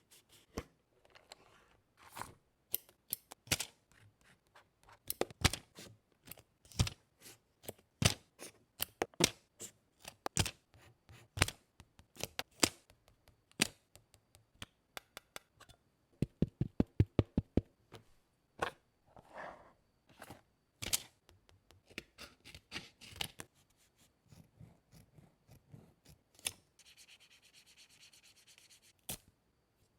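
Paper and stationery being handled for a collage journal: paper rubbing and rustling with many light taps and clicks. About halfway through comes a quick run of clicks, about ten a second, and near the end a short stretch of rubbing hiss.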